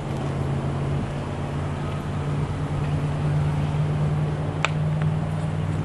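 Steady, low idling-engine hum, with one sharp click about three-quarters of the way through.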